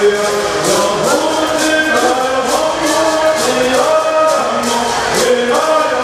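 Group of men singing a traditional Native American bird song in unison, with gourd rattles shaken in a steady beat about twice a second.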